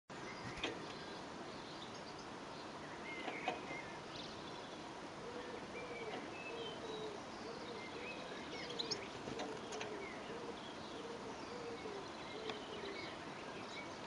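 Goldfinches chirping and twittering in short high calls, with a few sharp taps. From about five seconds in until near the end, a pigeon coos in a low phrase repeated over and over.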